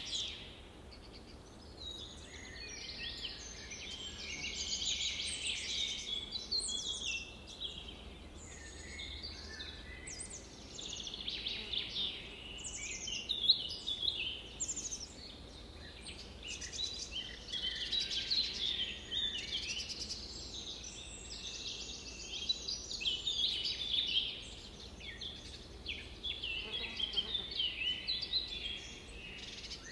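A chorus of birds chirping, many short high calls overlapping without a break.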